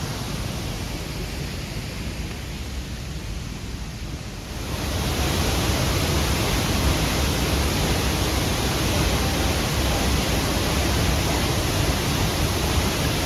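Waterfall: a steady rush of falling water that jumps louder about four and a half seconds in.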